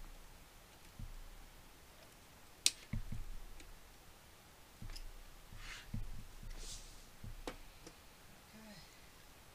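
Scattered small clicks and light knocks of computer case parts and hardware being handled during assembly, with one sharp click about two and a half seconds in and brief scraping around six seconds.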